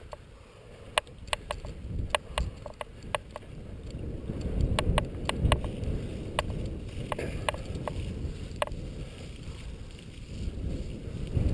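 Mountain bike rolling over a bumpy grassy trail: a low rumble of tyres on grass and dirt, with sharp, irregular clicks and rattles from the bike over the bumps.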